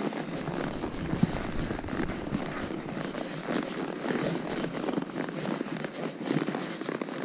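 Horses walking on a rocky trail, their hooves knocking and scraping irregularly on rock and gravel. Wind buffets the microphone with a low rumble, strongest in the first couple of seconds.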